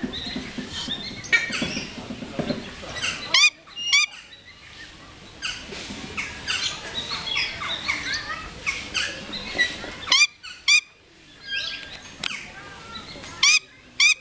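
Great grey owl chick screaming: short, harsh begging calls that come in pairs about half a second apart, three times, over constant faint chirping.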